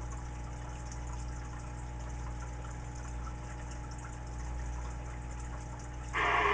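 CB radio receiving with a steady low hiss and a mains hum. Near the end, a loud, tinny burst of received audio breaks in through the radio's speaker.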